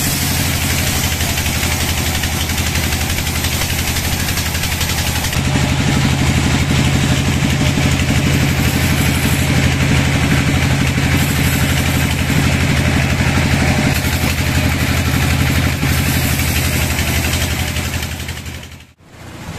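Band sawmill running and cutting through a log: a steady machine drone with the noise of the blade in the wood over it. The drone grows heavier about five seconds in and drops away briefly near the end.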